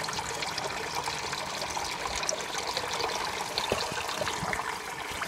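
Water trickling and splashing steadily into a fish pond from the aerator that keeps the pond's water moving.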